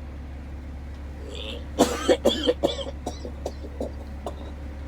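A person coughing hard, a quick run of several harsh coughs about two seconds in, with a few weaker ones after, over a steady low hum.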